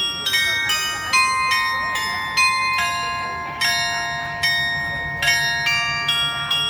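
Tower carillon bells playing a melody, a new bell struck roughly every half second, the notes ringing on and overlapping one another.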